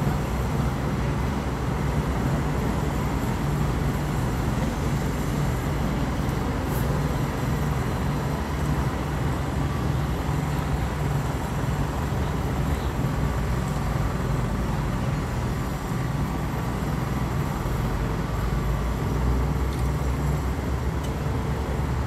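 Engine of heavy road-construction machinery running steadily, a constant low drone with no change in speed.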